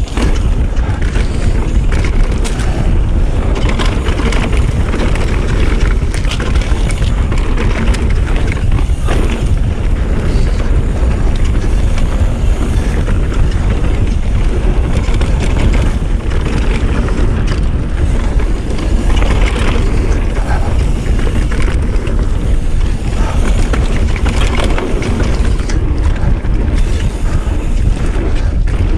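Mountain bike ridden fast down a dirt trail: wind buffeting the microphone and knobby tyres rolling over dirt, with many small knocks and rattles from the bike.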